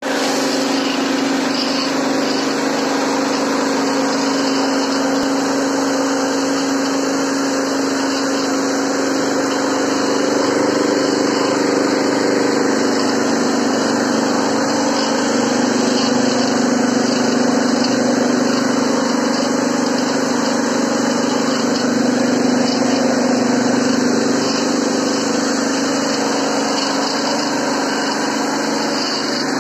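Mini rice mill with a 3 HP single-phase electric motor running steadily under load while milling rice. It makes a continuous mechanical hum with a steady pitched drone and a grinding hiss.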